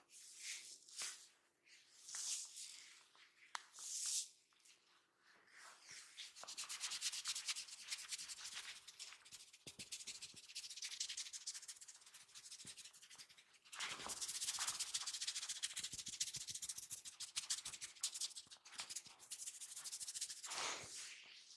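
A barber's hands rubbing quickly in a massage, close to the microphone: scattered short rubs at first, then two long spells of fast continuous rubbing, the second starting about fourteen seconds in.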